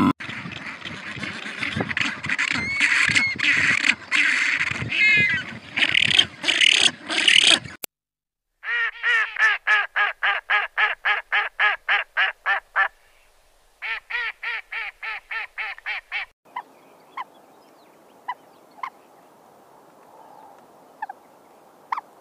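A white domestic duck quacking rapidly in two runs of evenly spaced quacks, about four a second, from about a third of the way in. Before the quacking there is a stretch of noisy rustling with short chirps. After it only faint background remains, with a few scattered ticks.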